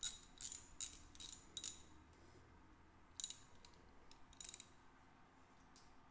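Ratchet wrench clicking in short bursts, about three a second, as a cam cap bolt is run down loosely on a Honda CBX cylinder head. After a pause come two more short metallic clinks, about three and four and a half seconds in.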